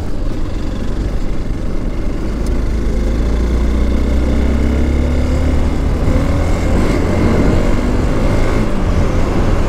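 Hero XPulse 200 4V single-cylinder motorcycle engine running while riding, its pitch climbing steadily from about three seconds in until near the end as the bike gathers speed.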